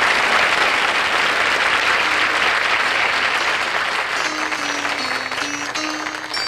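Studio audience applauding, slowly dying down. Soft musical notes start underneath partway through, and higher notes grow clearer near the end as the song's introduction begins.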